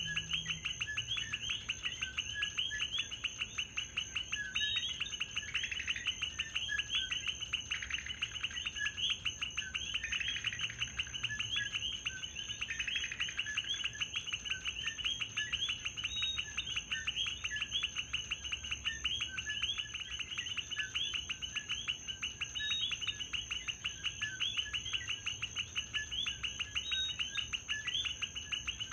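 A chorus of common coquí frogs calling, many overlapping chirping notes repeating without a break. A steady high-pitched whine runs beneath them.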